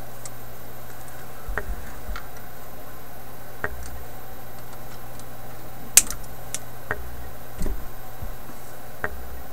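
Scattered small clicks and taps of hand tools and component leads on a tube radio's metal chassis during capacitor replacement, with one sharp click about six seconds in and a quick rattle of clicks shortly after, over a steady low hum.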